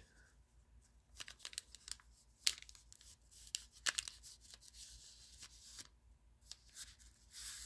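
Baseball card pack wrapper being peeled open by hand at its crimped seam. It makes a string of sharp crackles and rustling tears from about a second in, loudest near the end.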